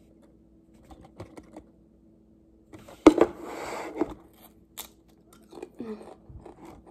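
A Pringles potato crisp bitten with a sharp crunch about three seconds in, then chewed with small crunching clicks.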